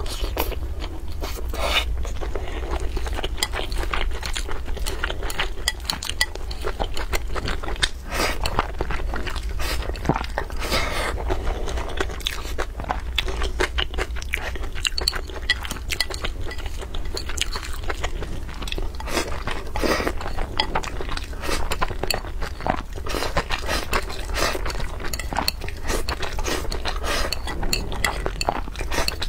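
Close-miked chewing and biting, with wet mouth smacks, as mouthfuls of rice and braised meat are eaten, mixed with chopsticks clicking and scraping against a ceramic bowl. A steady low hum runs underneath.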